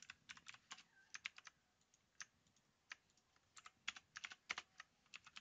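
Computer keyboard typing: faint, irregular keystrokes in short runs, with a pause of about a second in the middle.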